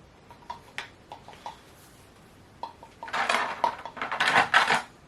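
Hard plastic clicks and clatter as a Funko Pop vinyl figure and its cardboard-and-plastic packaging are handled: a few light taps in the first second or so, then from about three seconds in a dense, loud run of rattling and rustling.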